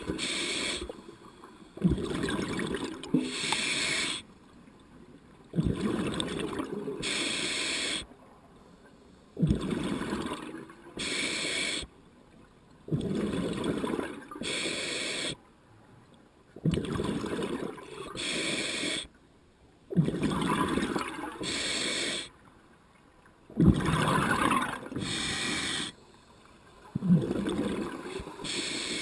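A scuba diver breathing through an open-circuit regulator underwater: eight or so even breath cycles, each a low gurgle of exhaled bubbles and the hiss of inhalation, one about every three and a half seconds.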